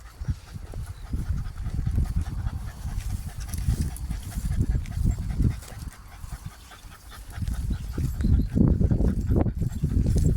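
Jagdterrier panting close to the microphone, a rapid, uneven run of low breaths that eases off briefly past the middle and comes back louder near the end.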